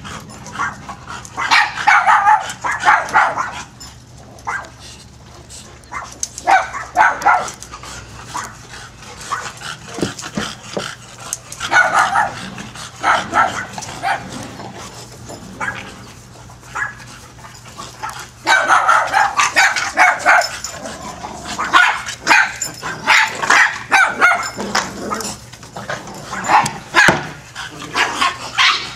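Dogs barking and yipping at play, in spells of quick repeated barks with quieter pauses between; the longest spell comes in the second half.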